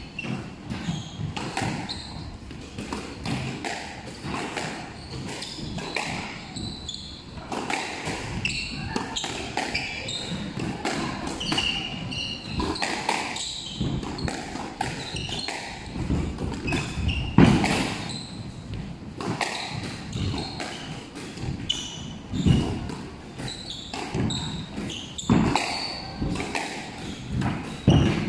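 Squash rally: the ball struck by rackets and smacking off the walls and wooden floor in irregular sharp hits, echoing in the court, with one especially loud hit about halfway through.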